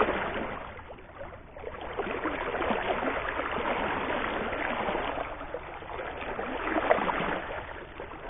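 River water rushing and splashing in a fast current, a choppy watery noise that swells and eases.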